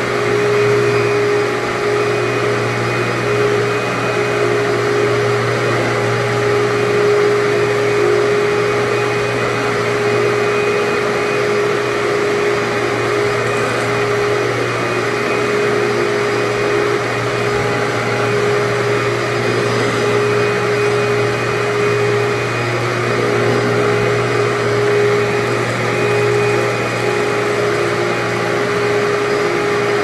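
Commercial upright vacuum cleaner running steadily while vacuuming carpet: a constant motor hum with a steady whine over the rush of suction.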